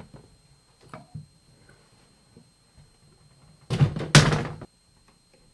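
Mid-tower PC case being tipped onto its side and set down on a stone tabletop: a loud knocking thud with two hits close together, lasting about a second, about four seconds in. A few faint handling clicks come before it.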